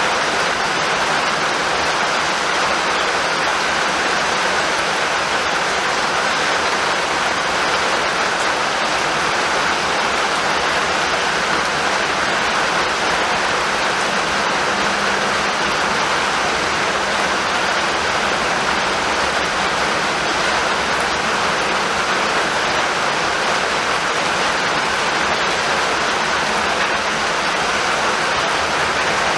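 Rain falling steadily: an even, unbroken hiss with no thunder claps.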